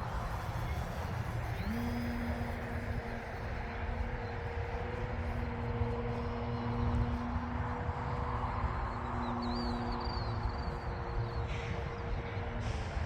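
Electric motor and propeller of a radio-controlled Super Decathlon model plane humming in flight. The hum comes up quickly about two seconds in and then holds steady, over wind rumbling on the microphone.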